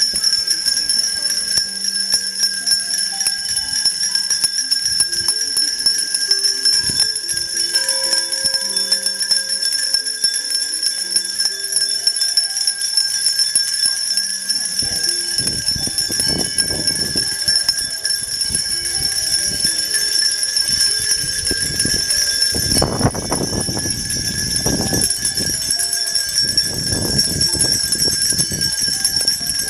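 Many hand-held bells rung together by a crowd, a continuous massed ringing. Low rumbling gusts come and go in the second half.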